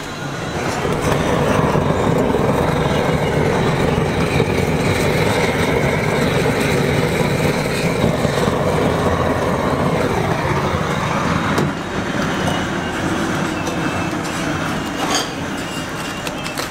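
Handheld butane kitchen torch flame hissing steadily while it browns the cheese topping on grilled lobster. It builds up in the first second and eases off about eleven seconds in.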